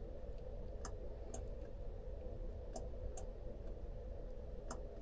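Computer mouse clicking, about five sharp clicks mostly in quick pairs, over a steady low hum.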